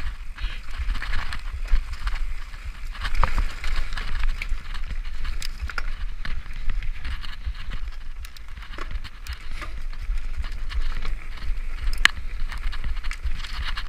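Mountain bike running fast down a dirt forest singletrack, heard from a camera on the rider: tyres rolling over dirt and leaf litter, with many short clicks and rattles from the bike, a sharp one about twelve seconds in, over a constant low rumble.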